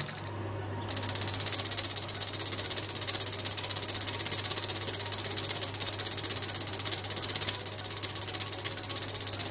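Thermoacoustic Stirling engine running: a steady low hum with a fast, even mechanical clatter over it.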